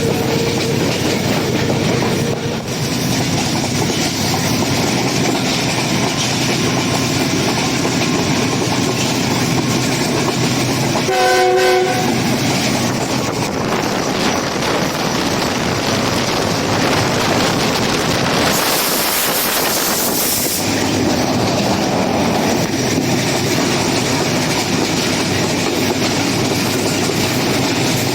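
Passenger train running on the rails with steady wheel and track noise, and a short horn blast about eleven seconds in. A brief high hiss follows some seconds later.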